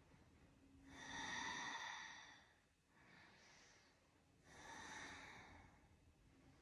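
A woman breathing slowly and audibly while holding a yoga backbend (bow pose): soft long breaths about a second in and again about four and a half seconds in, with a fainter one between.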